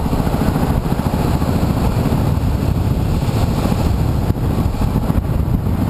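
Gusting storm wind buffeting the microphone, with the Yamaha WR250R's single-cylinder engine running underneath as a steady low rumble.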